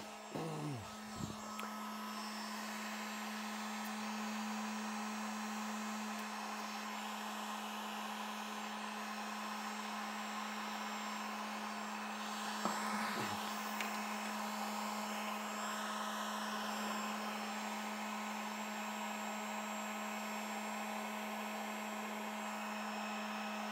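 Harbor Freight electric heat gun running steadily, a constant fan rush with a low hum, blowing hot air onto a stick of hot-melt glue to soften it.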